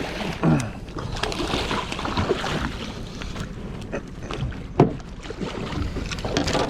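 A salmon being hauled into a small boat by hand: splashing water and a few sharp knocks, the sharpest nearly five seconds in, over steady wind and boat noise.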